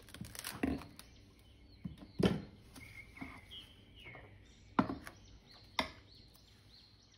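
Plastic cling film crinkling as it is pulled from its roll and stretched over glass bowls, with several sharp knocks of the glass bowls set down on a wooden cutting board.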